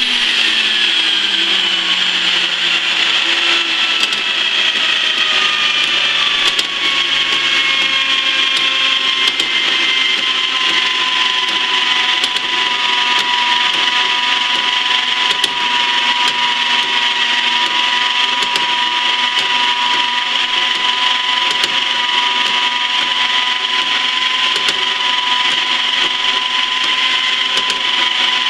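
Portable bandsaw with a 3/4-inch, 18-tooth blade running at slow speed and cutting 1018 mild steel plate: a steady motor-and-blade whine with sawing on the metal. Its pitch falls over roughly the first ten seconds, then holds steady.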